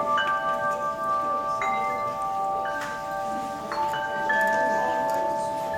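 Chimes ringing: several clear bell-like notes that sustain and overlap, with new notes struck every second or so.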